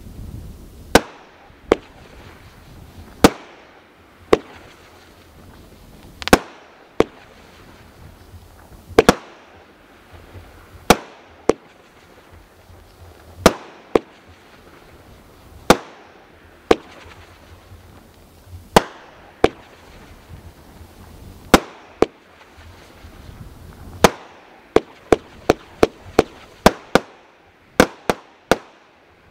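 Killer Hog consumer firework cake firing. Sharp bangs come every second or two, then a rapid string of about a dozen bangs near the end as the finale.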